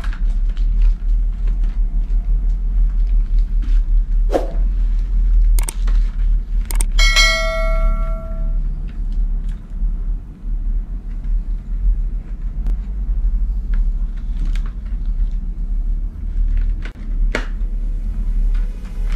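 Jiekai modular motorcycle helmet being pulled on and its chin strap worked: a few sharp clicks and knocks, and a brief bell-like metallic ring about seven seconds in, over a steady low hum.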